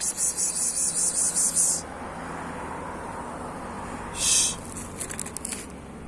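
Insect trilling in loud, high-pitched, rapidly pulsing bursts: one about two seconds long at the start, a short burst about four seconds in, and a fainter pulsing after it.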